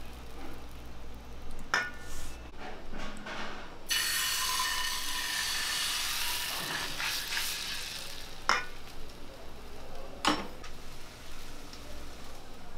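Crepe batter sizzling in a hot nonstick frying pan as it is ladled in and swirled, a steady hiss that starts a few seconds in and lasts about two and a half seconds. Around it come a few sharp clinks of the metal pan and ladle against the steel batter bowl.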